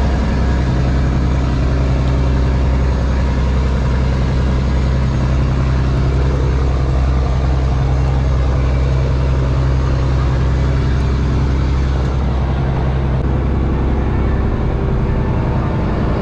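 Fishing trawler's inboard diesel engine running steadily, a low drone that fills the deck. Its note shifts slightly near the end.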